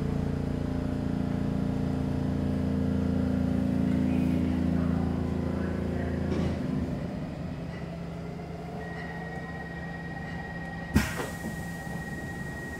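Stockholm Metro C6 subway car with a steady hum of several fixed pitches that drops away about six and a half seconds in as the train stands at the platform. A faint steady high tone follows, then a single sharp clunk near the end.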